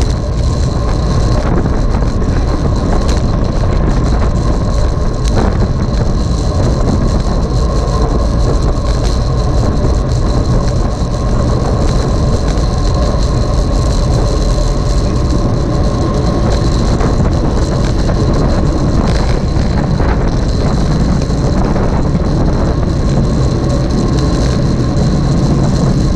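Loud, steady rush of wind on the microphone with road noise from riding at speed, and a thin steady high tone underneath.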